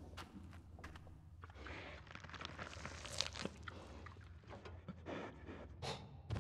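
Crunching and scraping of something moving over rock and gravel, a string of short gritty clicks that thickens about two to three seconds in, over a steady low rumble.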